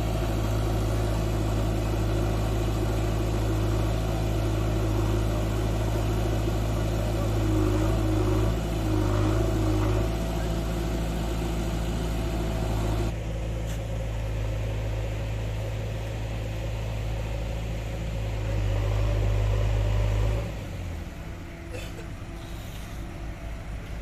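JCB backhoe loader's diesel engine running steadily. About twenty seconds in it gives way to a quieter diesel with an even, rapid thumping: the motor grader's engine.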